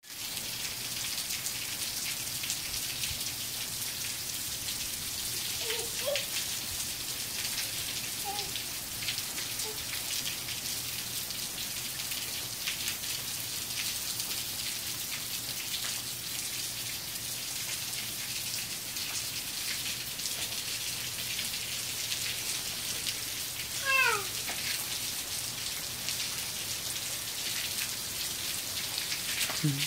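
Steady rain falling onto a concrete patio and its puddles. A few brief high-pitched cries come through it, the loudest a short falling squeal near the end.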